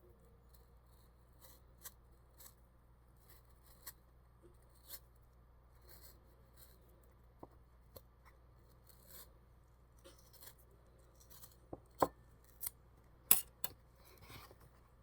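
Kiwi fruit being peeled: faint, irregular small scrapes and clicks, with a few sharper, louder clicks near the end.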